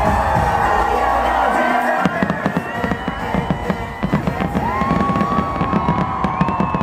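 Fireworks show finale: music with a heavy bass that cuts out about two seconds in, then aerial fireworks bursting and crackling in rapid succession over a crowd cheering and whooping.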